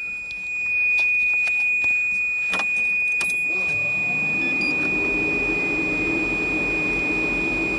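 Mosler MT900's twin-turbocharged 427 cubic-inch LSX V8 starting about three and a half seconds in and settling into a steady idle near 1000 rpm, heard from inside the cabin. Before it catches, keys clicking and jangling; a thin steady high tone sounds throughout.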